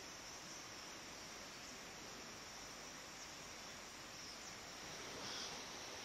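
Steady forest insect drone: an even, high, hissing hum, with a brief, slightly louder high sound about five seconds in.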